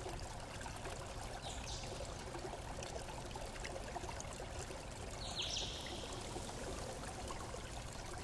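Steady low hiss like trickling water, with two brief high chirps that fall in pitch, about 1.5 s and 5.5 s in; the second is the louder.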